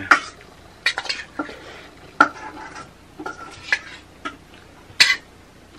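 Fingers mixing and scooping rice on a metal plate: scattered short scrapes and clicks of hand and food against the metal.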